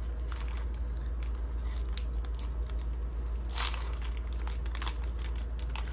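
Foil trading-card pack being torn and peeled open by hand: crinkling foil with small tearing crackles, one louder crackle about three and a half seconds in, over a steady low hum.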